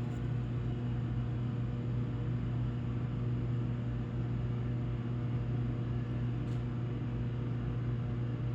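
A steady low mechanical hum with a faint tick about six and a half seconds in.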